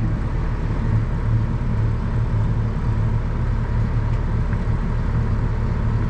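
Grain-cart tractor's diesel engine idling steadily with a low, even hum.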